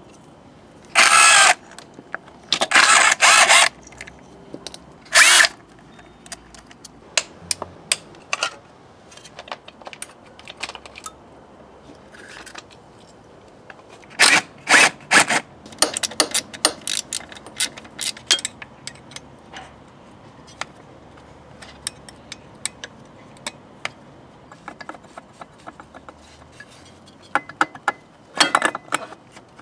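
Cordless drill/driver run in short bursts of about a second, several times, driving out bolts on a motorcycle's engine parts. Between the bursts come clicks and clinks of tools and loosened metal parts.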